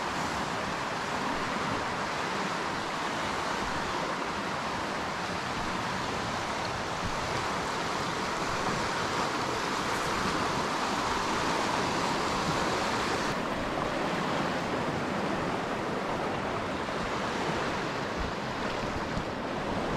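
Whitewater rapids on a river rushing over rocks: a steady, even roar of fast water. About two-thirds of the way in, the hiss loses its highest edge.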